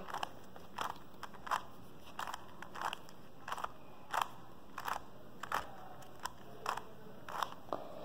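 Plastic 3x3 Rubik's cube having its layers turned by hand through a solving algorithm: a string of short clicks and clacks, about two or three a second, unevenly spaced.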